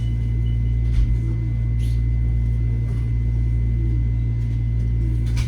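Metro-North M7A electric multiple-unit train running between stations, heard from inside the car: a steady low rumble with a faint steady whine above it. Two short knocks come through, one about a second in and one near the end.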